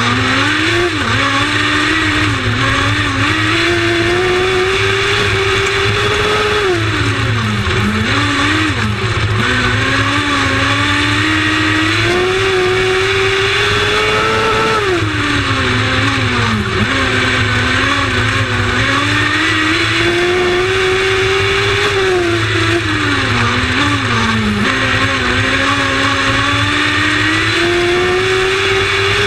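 Lightning Sprint race car engine running hard, its pitch climbing for several seconds and then falling sharply as the throttle is lifted. The rise-and-fall repeats about every seven to eight seconds, lap after lap on the track.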